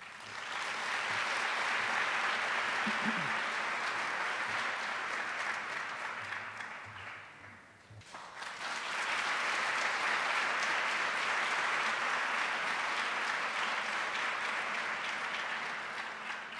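Audience applauding: a spell of clapping that dips about eight seconds in, then a second long spell that tapers off near the end.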